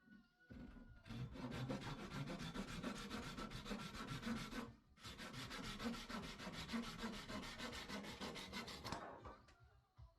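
Wood being abraded by hand tool or sander in fast, even strokes, in two runs of about four seconds each with a short break about five seconds in.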